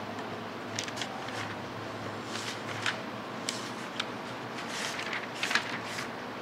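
Steady room hum with scattered short clicks and brief rustles, about ten in all, the loudest about five and a half seconds in.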